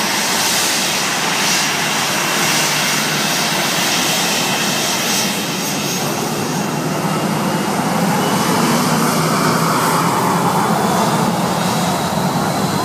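Twin jet engines of a Boeing 737-800 airliner running as it taxis and turns close by, a steady rushing noise with a thin high whine. The sound swells about eight seconds in, and the whine rises in pitch near the end.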